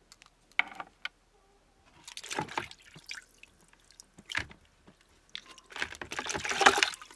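Water splashing and sloshing in a plastic bucket as hands rinse out a freshly cleaned red rock crab, in irregular bursts with the longest and loudest near the end.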